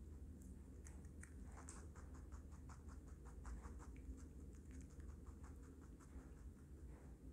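Rabbit chewing chopped raw vegetables (carrot and lettuce): a quick run of faint, crisp crunches, several a second.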